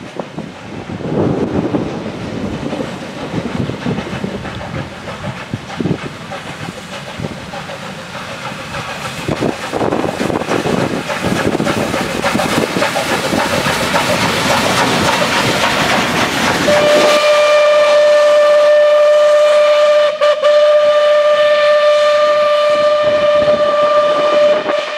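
MÁV class 424 steam locomotive and its vintage coaches passing, with rumbling and wheel clatter that grows louder. About two-thirds of the way in, the locomotive's steam whistle sounds one long steady blast of about eight seconds, broken once by a brief dip.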